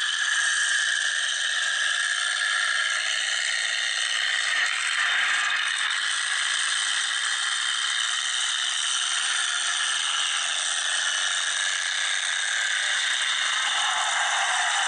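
Unmuffled engines of demolition derby trucks running together, a steady rattling racket that sounds thin, with little bass.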